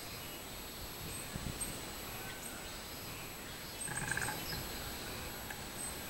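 Robust cicadas (minmin-zemi) calling from the trees in a steady high chorus, with a short louder call about four seconds in.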